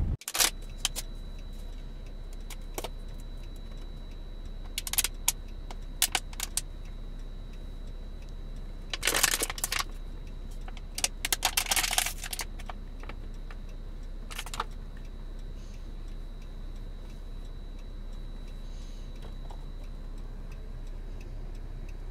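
Steady hum of a car interior with a faint high whine, broken by scattered light clicks and rattles that come in short clusters, busiest about halfway through.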